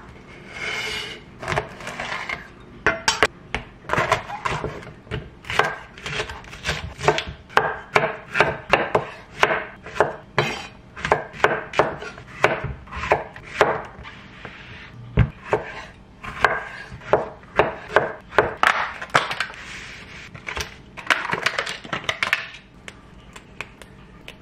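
Chef's knife chopping vegetables on a wooden butcher-block board: runs of crisp knocks, about two to three a second, broken by short pauses.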